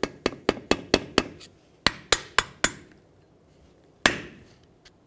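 A hammer tapping a flathead screwdriver to seat a snap ring in its groove in a steering knuckle, retaining a new front wheel bearing. A quick run of light, sharp taps comes first, another short run follows about two seconds in, and one harder tap comes at about four seconds.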